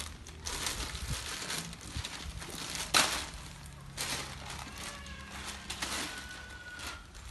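Thin plastic courier mailer bag crinkling and tearing as it is pulled open by hand, with sharp rips about three and four seconds in.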